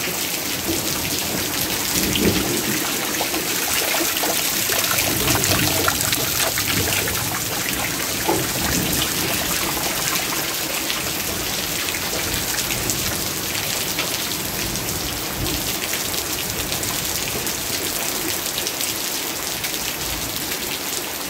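Heavy rain falling steadily, a dense hiss of countless drops spattering on the wet ground.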